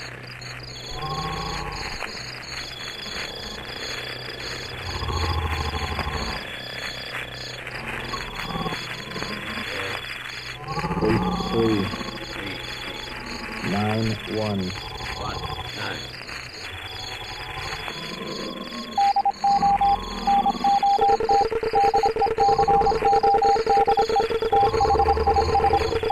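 Insects trilling in a steady, broken chirp under curving, voice-like calls. About three quarters of the way through, a loud pulsing electronic tone starts, and a steady lower hum joins it a couple of seconds later.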